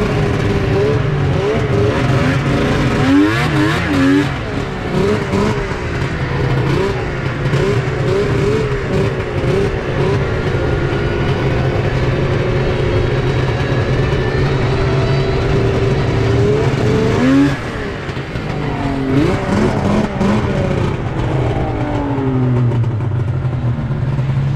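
Two-stroke snowmobile engine running under throttle on a trail, its revs wavering up and down. The throttle eases off briefly about 17 seconds in, then the revs pick up again.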